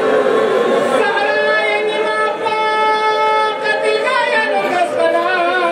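A man chanting a mourning lament (noha) into a microphone, one sung voice holding long notes that waver and slide downward about four seconds in.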